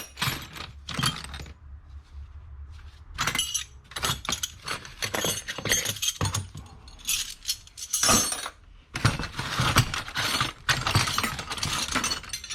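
Metal hand tools clinking and rattling against each other as they are picked through and dropped. The sharp clinks come in irregular clusters, sparse at first and busiest in the second half.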